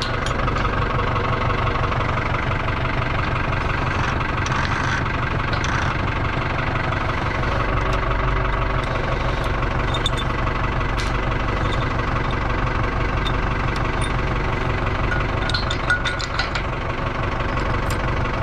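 Farm tractor's diesel engine idling steadily, with a few light clicks over it.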